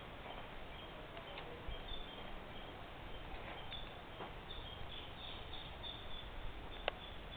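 Birds chirping in short, high calls over a steady outdoor hiss, with a single sharp click near the end.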